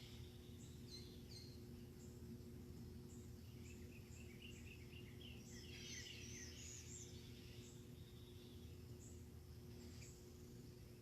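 Faint birds chirping and twittering, with short high notes scattered throughout and a busier run of twittering from about four to seven seconds in, over a steady low hum.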